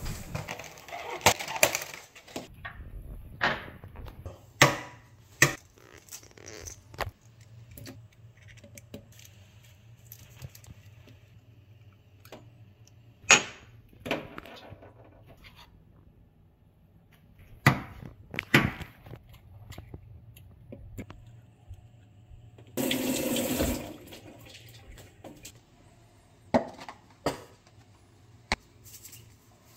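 Eggs being handled and cracked into small glasses at a kitchen sink: a series of separate sharp knocks and clicks of shell, glass and plastic tray on a stone counter. A short rush of running tap water comes about 23 seconds in.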